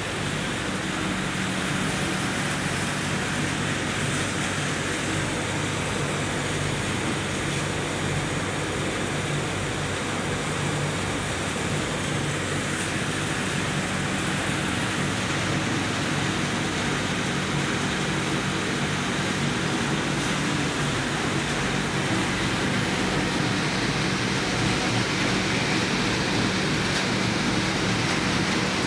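Machinery of a circuit-board recycling plant running steadily: a constant motor hum under an even rushing noise, unchanging throughout.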